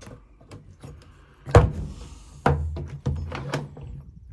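An old painted timber door stuck in its frame, being pushed and rattled: a loud knock about a second and a half in, then several more knocks with a low rumble as it shifts against the frame.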